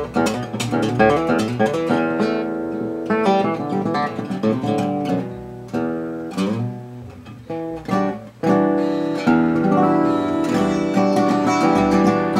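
1945–46 Gibson LG-2 acoustic guitar being played: picked single notes and chords left to ring, dipping quieter for a moment, then a fuller run of chords from about eight seconds in.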